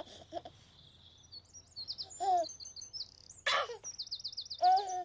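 Songbirds chirping and trilling in quick high runs, with a baby's short giggles and coos breaking in a few times.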